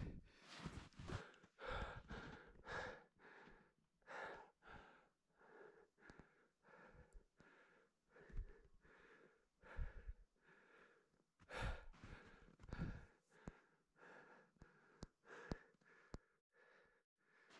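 A climber's hard breathing on a steep snow ascent, short noisy breaths coming about one to two a second.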